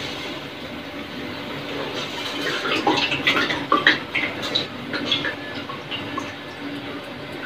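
Soaked, washed Gobindobhog rice sizzling in hot oil in a steel kadai, a steady hiss that breaks into a burst of crackling and clicks about three to four seconds in.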